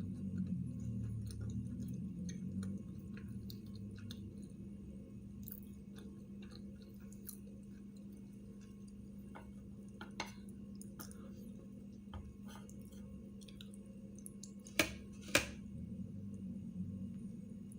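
Close-up chewing of sushi rolls, with small wet mouth clicks scattered throughout and two sharp clicks close together near the end, over a steady low hum.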